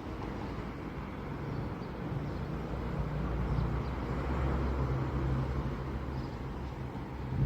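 BDZ class 44 electric locomotive running, a steady low hum over a rumbling, noisy wash that grows louder over the first few seconds, then eases slightly.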